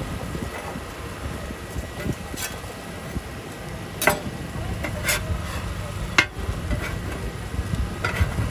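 Okonomiyaki sizzling on a large iron griddle, with metal spatulas now and then clacking and scraping against the plate: about five sharp clacks, the loudest about six seconds in. A low rumble runs underneath.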